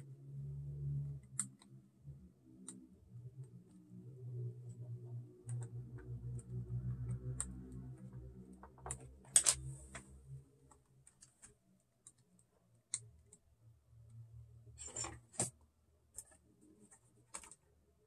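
Scattered light plastic clicks and taps from handling an opened laptop: the battery's power-cable connector being reconnected, then the bottom cover set back on and pressed into place. There are a few sharper clicks in the second half.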